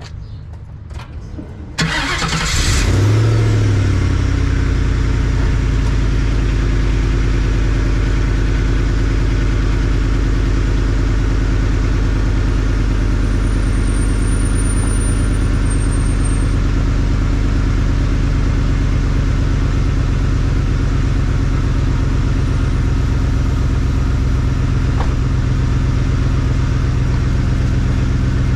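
A few clicks, then a car engine cranks briefly and starts about two seconds in, flares up and settles into a steady idle. The exhaust has a freshly clamped pipe connector that still leaks a little air at both ends.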